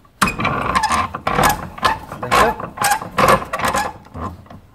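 A thin car trim strip scraping and rubbing against the jaw of a steel bench vise in a quick, irregular series of strokes, about two a second. The strokes stop shortly before the end.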